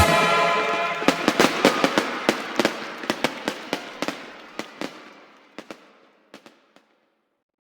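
Fireworks crackling: a string of sharp pops, about three a second, over a hiss that fades away. The pops thin out and stop about two-thirds of the way through.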